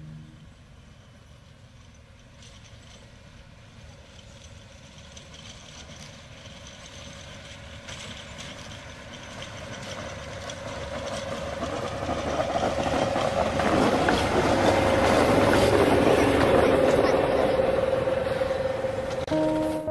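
PKP class SM42 diesel-electric locomotive hauling a passenger coach approaches and passes close by. Its engine drone with a steady tone, together with wheel-on-rail noise, grows steadily louder and is loudest as it goes past. Just before the end, music with held bell-like tones cuts in.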